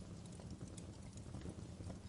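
Campfire burning: a steady low rumble of the flames with frequent irregular crackles and pops of the wood.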